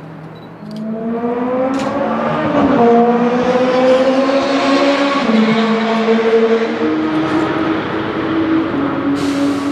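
A Ford GT40's V8 engine revving: about a second in, the engine speed rises and the sound gets louder. It holds at raised revs with a short blip, then eases back down in steps toward a fast idle.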